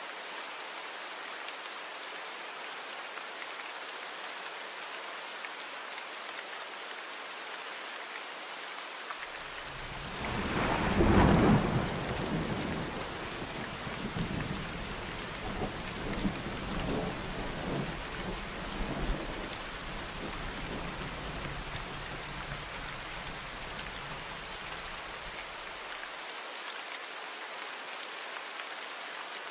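Steady rain falling, with a roll of thunder coming in about nine seconds in: it peaks sharply about eleven seconds in, rumbles on in several swells, and dies away a few seconds before the end.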